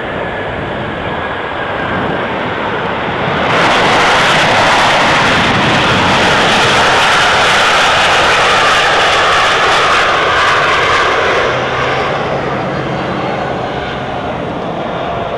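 Boeing 737-800's CFM56-7B jet engines on the landing rollout. About three and a half seconds in, the noise jumps sharply to a loud rush, typical of reverse thrust being applied after touchdown. It holds for about eight seconds, then drops back with a falling whine as the engines spool down toward idle.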